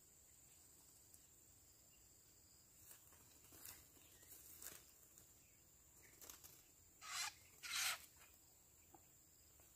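Mostly near quiet, with a few light dry rustles and two short, louder rustles about seven and eight seconds in.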